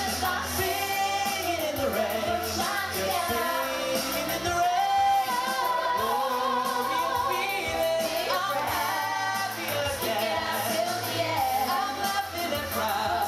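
Choir music: lead voices on handheld microphones sing a melody over the choir and musical accompaniment.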